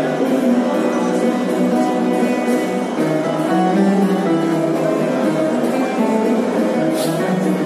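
Live music with plucked string instruments playing a melody at a steady, full level.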